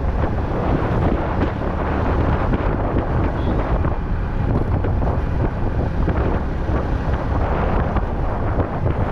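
Wind rushing over an action camera's microphone on a moving Yamaha R15 V3 motorcycle, with the bike's 155 cc single-cylinder engine running underneath, steady throughout.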